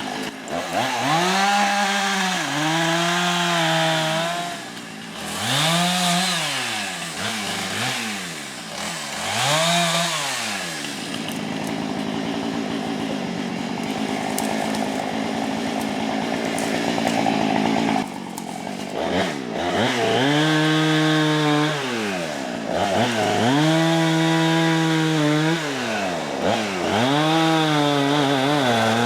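Chainsaw revving up and down over and over, held at full throttle between the revs as it cuts brush and small trees. There is a steadier, noisier stretch in the middle.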